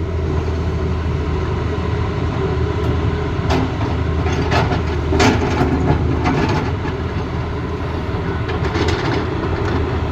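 Heavy diesel engine of a Tata Hitachi Zaxis excavator running steadily, with a run of sharp metallic clanks and knocks from about three and a half to six and a half seconds in and a few more near the end.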